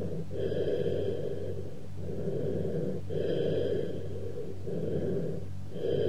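Cavernous bronchial breath sounds heard through a stethoscope: a low-pitched, hollow rushing breath noise that swells and fades over about two breaths, with a short pause between inspiration and expiration. It is the sign of an underlying lung cavity with irregular walls, or of an open pneumothorax.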